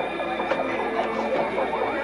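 A steady jumble of overlapping, indistinct voices mixed with background music, with no single sound standing out.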